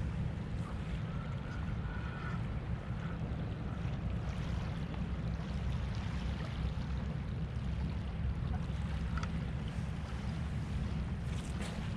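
Steady low rumble of wind buffeting the microphone, over the soft wash of small waves lapping at a shoreline.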